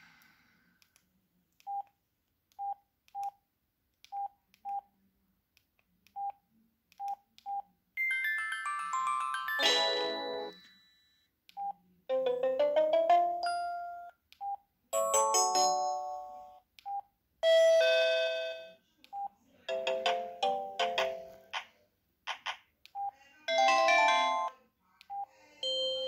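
Samsung SGH-X640 mobile phone previewing its built-in SMS message tones as the tone list is scrolled. First comes a run of short single key beeps. Then about six short polyphonic chimes and jingles play one after another, each broken off by a key beep as the next tone is selected.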